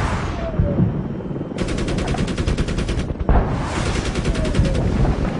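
Automatic machine-gun fire in two long rapid bursts, about ten shots a second, with a short gap between them, over a continuous low rumble.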